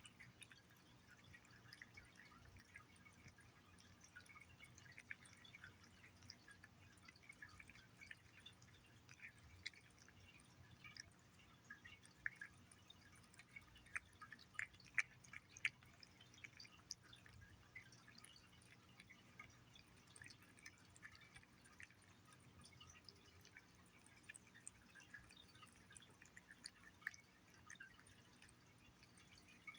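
Cat eating wet paté cat food: quiet, irregular, wet licking and chewing clicks, thickest and loudest about halfway through.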